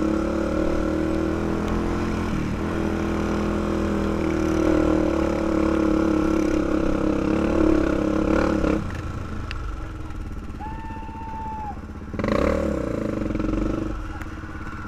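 2005 Honda 400EX ATV's single-cylinder four-stroke engine running under throttle along a dirt trail, then dropping off to a lower, quieter running about nine seconds in, with one short throttle burst about twelve seconds in.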